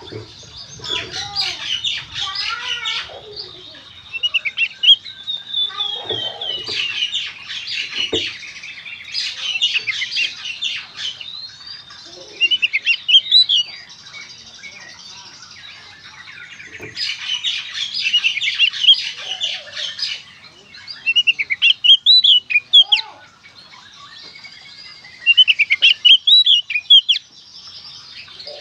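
Oriental magpie-robin (kacer) singing a rapid, varied song of whistles and chattering notes, in phrases of a few seconds with short pauses between.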